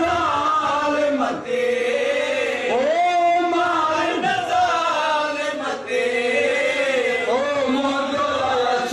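A man sings a Muharram mourning lament (lori) in a chanting voice, holding long notes that swoop up and fall away. He breaks off briefly for breath twice.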